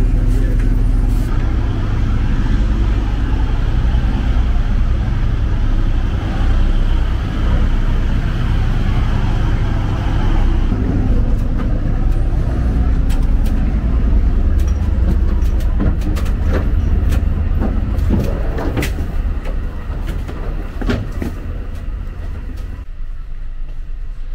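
A moored ferry's engines running with a steady low hum. A few knocks come late on, and the hum turns quieter near the end.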